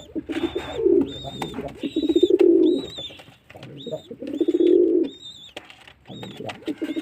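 Domestic pigeons cooing: a run of low, rolling coos, each about a second long, with one starting just before the end. A high, thin chirp repeats about twice a second alongside them.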